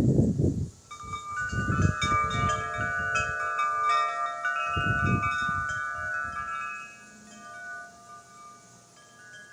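Wind chimes ringing, with many overlapping metallic tones that start about a second in and fade out near the end. Several bursts of low rumble come and go, loudest near the start and around the middle.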